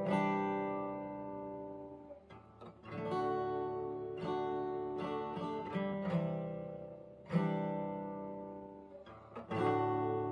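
Background music: acoustic guitar playing chords, each strum ringing out and fading before the next, with fresh strums about 3 seconds in, about 7 seconds in, and near the end.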